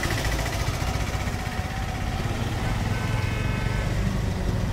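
Road traffic at a checkpoint: vehicle engines running with a steady low rumble, and a faint steady whine in the second half.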